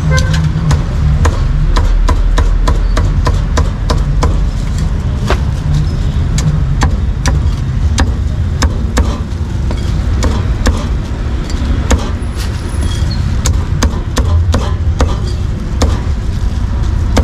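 Meat cleaver chopping roast pork on a thick wooden chopping block: a quick, uneven run of sharp knocks, about two or three a second, over a steady low rumble of street traffic.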